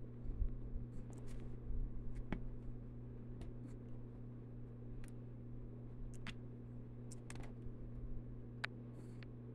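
A tabby cat's paw batting at the phone: soft low bumps in the first two seconds, then scattered faint clicks, over a steady low hum.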